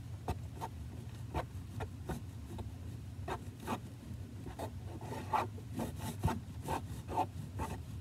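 Wooden craft stick stirring slime in a plastic tub, scraping and rubbing in irregular short strokes, roughly two or three a second, as contact solution is mixed into the glue-and-shaving-cream slime. A steady low hum runs underneath.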